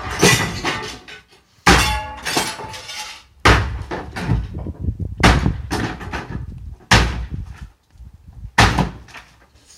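Heavy blows against a garden shed being demolished, about five strikes nearly two seconds apart, each followed by a clatter of breaking material.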